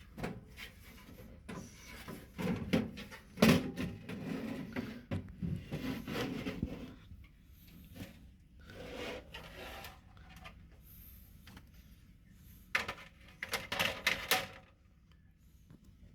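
Handling noises: an irregular run of clicks, knocks and rubbing, with a sharper knock a few seconds in and a quick flurry of clicks near the end.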